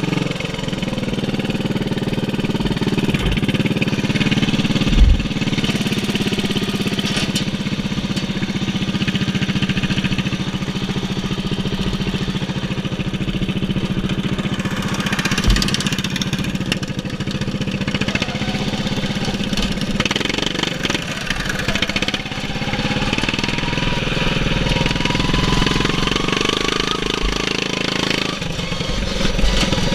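Racing lawn mower's engine, governed to 3650 rpm, running steadily as the mower is driven along a dirt track, heard from on board. There is a single loud knock about five seconds in, and a faint rising whine late on.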